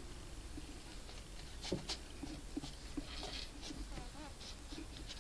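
Faint, scattered clicks and soft scratching of knitting needles working yarn.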